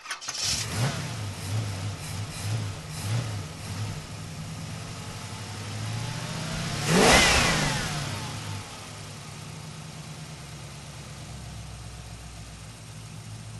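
A car engine running with a lumpy, pulsing note, then one loud swell about seven seconds in as the car accelerates past, its pitch sweeping up and then falling away, leaving a steady low hum.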